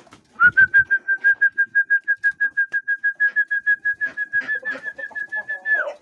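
A person whistling a fast trill on one steady high note for about five seconds, sliding down in pitch at the end, calling the pigeons down to the feed. Pigeon wings flutter alongside.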